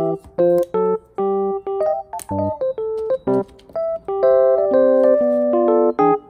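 Background music played on keyboard: a melody of separate held notes with short breaks between phrases.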